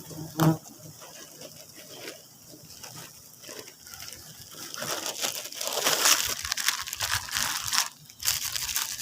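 Irregular rustling and crinkling handling noise, with a single knock about half a second in, growing louder from about five seconds.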